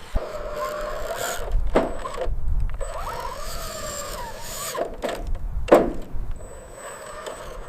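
Small electric motors of an RC construction vehicle whining, their pitch wavering up and down under load, with scraping and a few sharp clicks.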